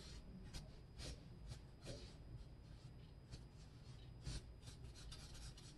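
Faint scratchy strokes of a Copic W5 warm gray marker's chisel nib rubbing across toned gray sketch paper, coming at an uneven pace.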